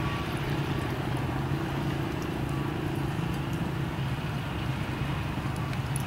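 Horses cantering on sand arena footing, with soft hoofbeats over a steady low rumble.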